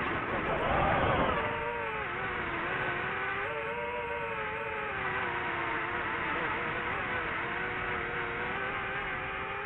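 DJI FPV drone's motors and propellers whining: several steady tones that drift slowly up and down in pitch with the throttle, after a louder rush of wind and motor noise in the first second or so.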